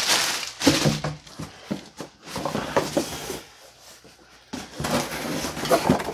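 Packaging being handled: a plastic bag crinkling and cardboard box flaps rustling and bumping as a box is opened, with a short lull a little past halfway.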